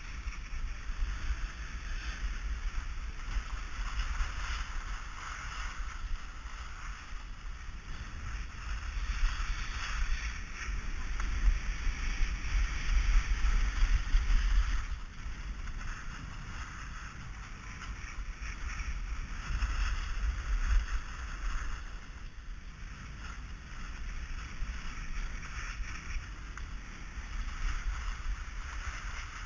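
Wind buffeting a helmet-mounted GoPro Hero 2 as it rides downhill, a low rumble under a steady hiss of snow scraping beneath the rider's edges. It grows louder for a few seconds past the middle, as speed picks up.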